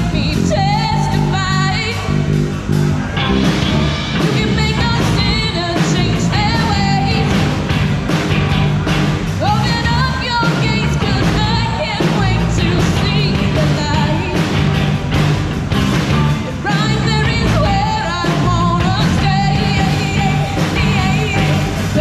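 Live rock band playing: a woman sings lead over electric guitars, keyboard and drums. Heard through a GoPro's built-in microphone, which gives a rough sound.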